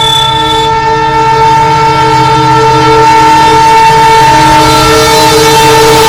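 Diesel locomotive horn sounding one long, steady blast of several notes together, over the low rumble of the locomotive's engine.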